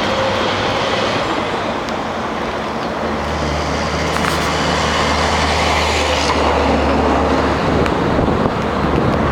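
Rumble of a passing BNSF freight train mixed with road traffic noise, with a low engine drone that strengthens about three seconds in and eases off near eight seconds.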